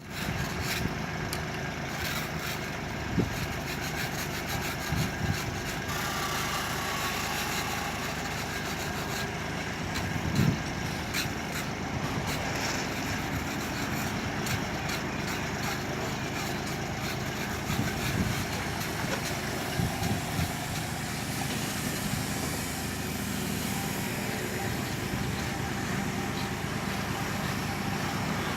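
Small excavator's engine running steadily, with a few sharp knocks standing out now and then.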